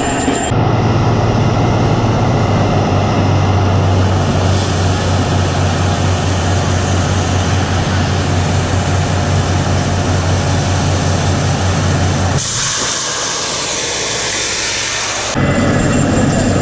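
Truck-mounted air-pressure borewell drilling rig running loud, its engine and compressor making a steady drone with a strong low hum. About twelve seconds in the hum drops out for some three seconds under a loud hiss of rushing air, then the drone returns.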